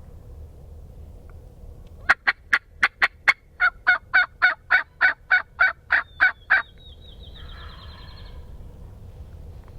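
A run of turkey calls: about six sharp, quick cuts followed by a rhythmic series of about ten yelps, roughly three a second, stopping abruptly.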